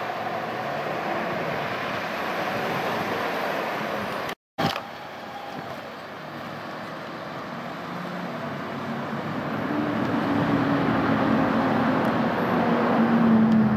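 Road traffic passing: a steady wash of tyre and engine noise, cutting out for an instant about four seconds in. Over the last few seconds one vehicle's engine drone grows louder and dips slightly in pitch as it goes by.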